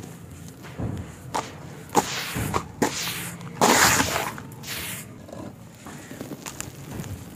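Handfuls of dry sand and cement powder being scooped and dropped back into a basin. There are several soft thuds and crunches as the handfuls land, with a hiss of falling powder. The loudest pour comes about halfway through.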